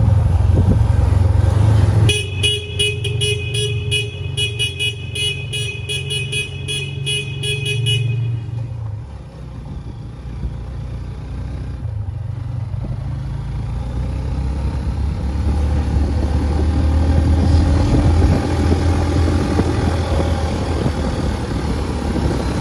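Motorcycle engine running under way, with a low rumble. About two seconds in, a horn sounds for some six seconds with a fast pulsing pattern, then stops.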